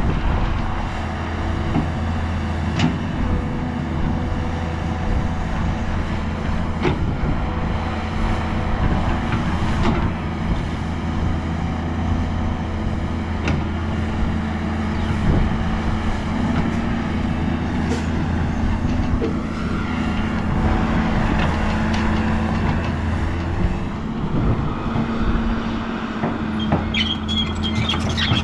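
Heavy diesel earthmoving machinery runs steadily, with a few sharp knocks along the way and brief high squeaks near the end.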